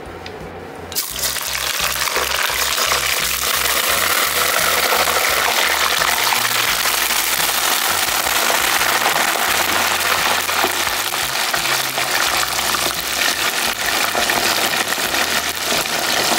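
Raw potato sticks dropped into hot oil in a pot, setting off a loud, steady sizzle of deep frying that starts suddenly about a second in.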